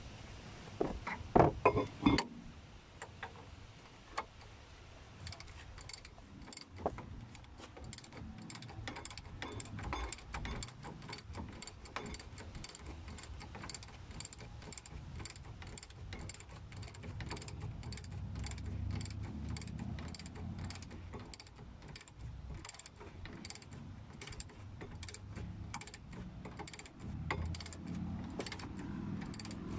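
Ratchet wrench with a 21 mm socket clicking steadily as it tightens the rear brake caliper bracket bolt on a VW T5/T6. There are a few loud metal knocks near the start.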